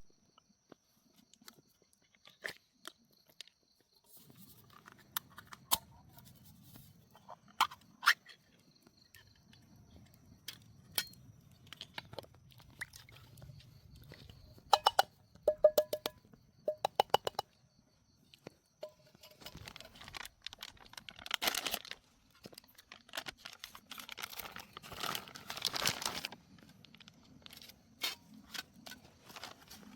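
Food and cookware being handled: scattered clicks and taps, a quick run of small clicks in the middle, then two spells of packaging rustling and tearing in the second half.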